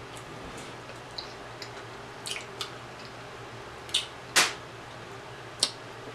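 Close-miked eating sounds: fingers pulling at sauce-soaked rotisserie chicken and chewing, heard as a handful of short wet clicks and smacks. The loudest comes a little past four seconds in.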